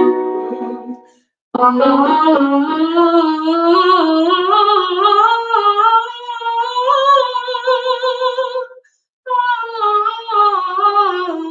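A woman singing a vocal warm-up exercise. She holds a note that stops about a second in, then sings a long line that climbs steadily in pitch with a rippling, wavering motion. After a short breath she sings a line that comes back down.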